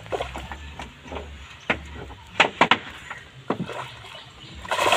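Water splashing as a hoop-framed scoop net is worked in the water beside a wooden canoe: a string of sharp splashes and knocks, the loudest about halfway through, then a louder rush of water just before the end.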